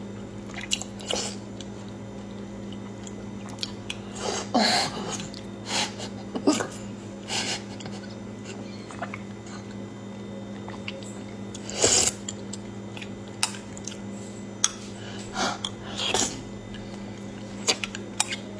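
Slurping and sucking as thick lotus root starch drink with nuts is drawn straight from a tipped-up container: irregular short wet sucks every second or two, the loudest about twelve seconds in. A steady low electrical hum runs underneath.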